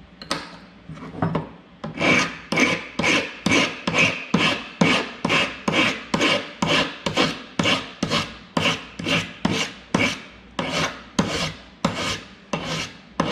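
Hand file pushed across a soldered metal seam in steady, even strokes, about two a second, taking down the last ridge of the solder ledge to bring the joint flush. The first two seconds hold lighter, uneven strokes.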